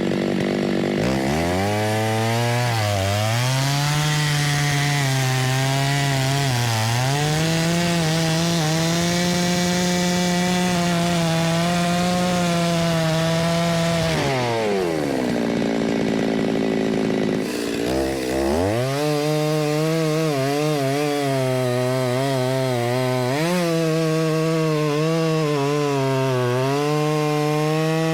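Stihl two-stroke chainsaw at full throttle bucking oak rounds, its pitch dipping as the chain bogs in the cut. About halfway it falls back to low revs for a few seconds, then revs up again and goes back into the wood.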